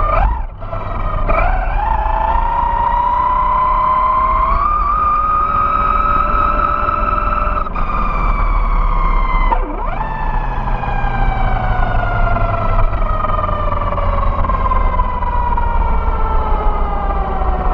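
Vaterra Glamis Uno RC buggy's electric motor and drivetrain whining, heard from on board: the pitch climbs steeply at the start and keeps rising for several seconds, cuts off briefly about ten seconds in as the throttle is let off, then sinks slowly as the car coasts. A low rumble from the tyres on asphalt runs underneath.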